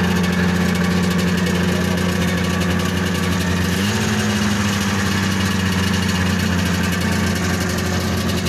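1976 John Deere Liquidator 340 snowmobile's two-stroke engine idling steadily, its idle stepping up slightly about four seconds in.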